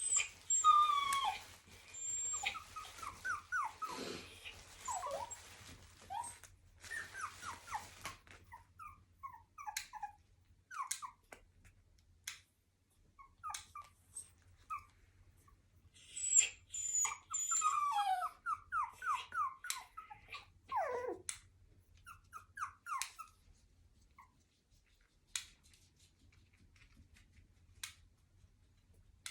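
Cockapoo puppy whining and yelping in runs of short high cries while its nails are trimmed: two bouts, one at the start and another about halfway through, with light sharp clicks in between.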